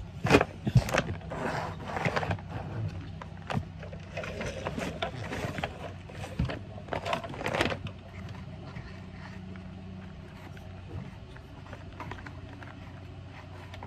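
Knocks, thuds and rustling of a person moving on the floor and handling plastic toys, busiest and loudest in the first second and continuing in bursts until about eight seconds in. After that only a steady low hum remains.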